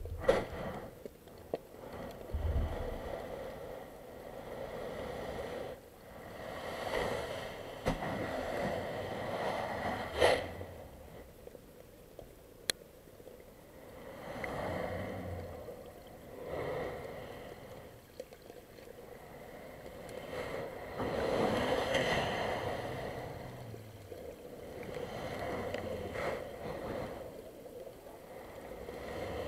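Muffled underwater wash of ocean surge around a submerged camera, swelling and fading every few seconds, with a few sharp clicks and knocks.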